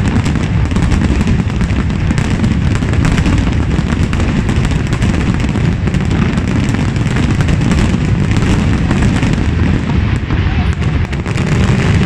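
Aerial fireworks finale barrage: bursts follow one another so fast that they run together into a continuous loud din of booms and crackles, with no pause.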